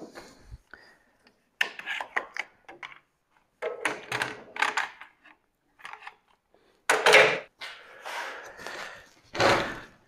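Handling noises as an electric wheelchair motor is unmounted from a sawmill carriage by hand: several short knocks, clunks and rubbing sounds with pauses between them.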